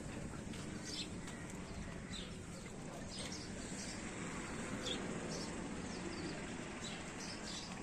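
Small birds chirping in short, scattered calls over a steady outdoor background noise.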